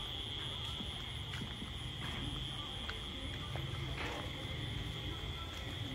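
Night insects, such as crickets, chirring in a steady high-pitched chorus over a low rumble, with a few faint clicks.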